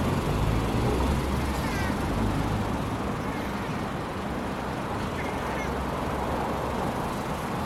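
Steady traffic rumble with two faint short chirps from a cat calling to a bird it is watching, about two seconds in and again about five seconds in.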